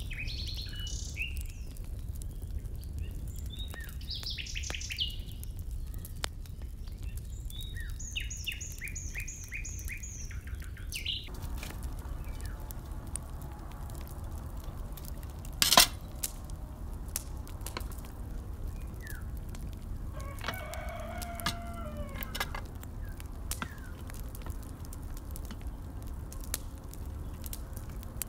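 Birds chirping and calling, with a fast high trill about eight seconds in, then a chicken calling about twenty seconds in. One sharp clank comes near the middle.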